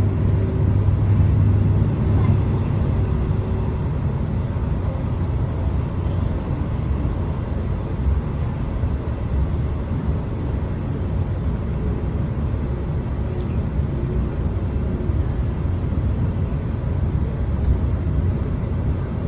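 Inside a moving KTM passenger train carriage: a steady low rumble of the train running along the track.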